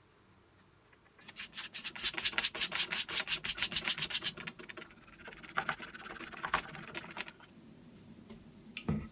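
Rapid back-and-forth rubbing strokes, as of sanding or scrubbing a part by hand, about eight strokes a second for some three seconds. Softer, slower strokes follow, then a single knock near the end.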